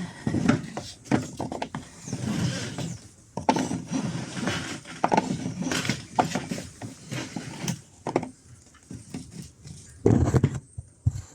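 Wires taped to a fuel hose being pulled through the inside of a boat hull: irregular scraping and rubbing with knocks and clicks as the hose drags against the hull, with a louder stretch of scraping about ten seconds in.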